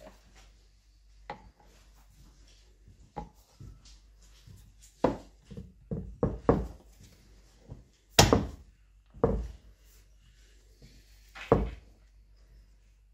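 Irregular knocks and clunks of metal gearbox parts being handled and fitted onto shafts, about ten in all, with the loudest about eight seconds in.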